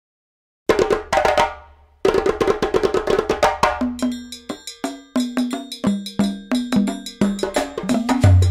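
Percussion-led music starts just under a second in: a steady rhythm of sharp strikes, with a short low note pattern repeating through the second half.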